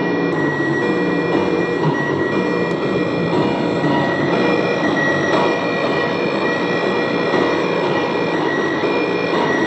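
Circuit-bent Korg DDD-1 drum machine patched through a homemade digital effect, putting out a dense, glitchy electronic noise drone. Steady whining tones sit over a shifting low buzz.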